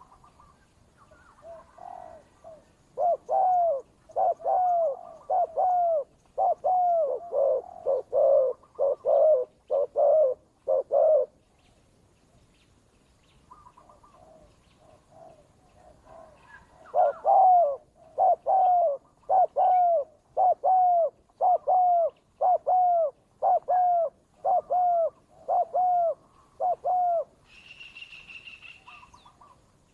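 Doves cooing in rapid series of rising-and-falling notes, about two a second, in two long bouts: the calls of a decoy and a wild rival challenging each other. A brief higher chirp comes near the end.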